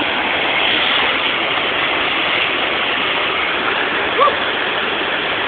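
Waterfall's falling water rushing steadily, with one short shout from a person about four seconds in.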